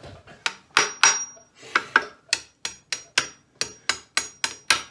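Hammer tapping repeatedly on a 1928 Ford Model A engine's cast-iron rear main bearing cap to knock it loose: about fourteen sharp metallic strikes, roughly three a second, some with a brief high ring.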